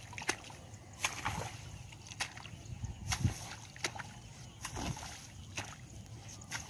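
Long-handled rake dragged and splashed through shallow paddy water and rice plants, in short sloshing strokes about once a second over a steady low rumble.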